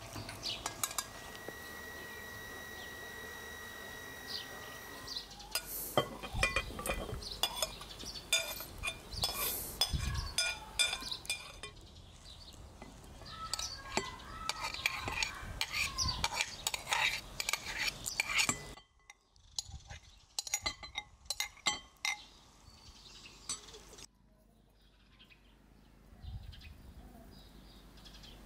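Water pouring from a metal pot through a metal sieve for the first few seconds, then a metal spoon scraping and clinking against glass and ceramic bowls as grain and chopped salad ingredients are spooned in and mixed.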